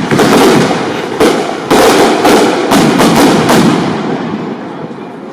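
Fireworks going off in a rapid string of about ten loud bangs with crackling between them over the first three and a half seconds, then dying away.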